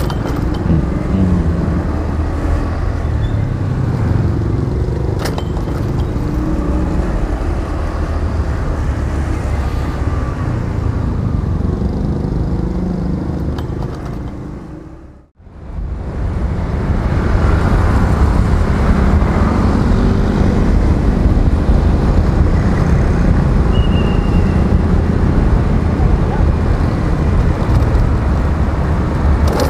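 Ride-along sound from a Honda scooter: steady engine, road and traffic noise as it rides. The sound fades out and comes back in about halfway through.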